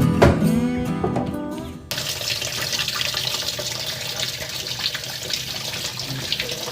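Acoustic guitar music cuts off abruptly about two seconds in. Then comes a steady rush of tap water running into a washing machine tub, filling it to test a repaired drain valve.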